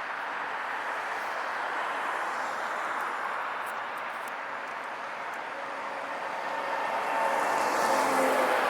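Steady rushing wind and road noise from riding a recumbent trike. The noise swells about seven seconds in, with a humming note, as a motor vehicle goes by.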